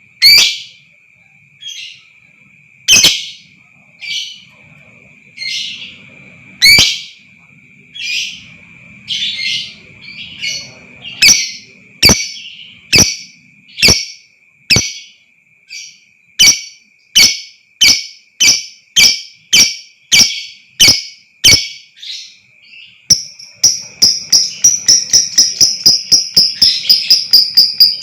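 Lovebird giving sharp, shrill calls, at first about one a second and then quickening to about two a second, breaking about 23 seconds in into a fast, rapid chattering run (ngekek). A steady high tone sounds underneath throughout.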